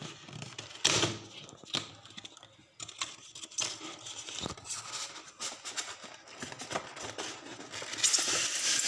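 Cardboard box and packaging being opened by hand: irregular rustling, scraping and small clicks, louder and denser near the end.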